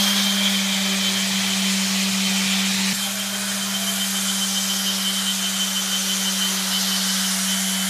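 Festool Pro 5 LTD random orbital sander running steadily on a wooden board, with the Festool CT-SYS dust extractor drawing through its hose. The extractor is in auto mode, switched on by the sander's trigger.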